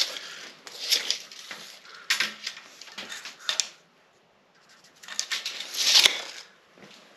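Measuring and marking out a quarter-inch steel plate with a steel tape measure and marker: short scraping and rustling bursts, a brief pause, then more scraping ending in one sharp click about six seconds in as the tape blade goes back into its case.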